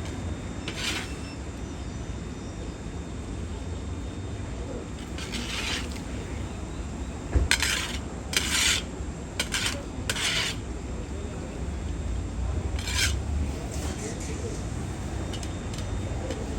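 A series of short, separate scraping strokes, about seven of them and most close together around the middle, over a steady low background rumble.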